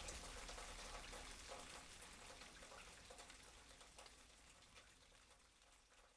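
Near silence: a faint hiss with a few tiny ticks at first, fading out near the end.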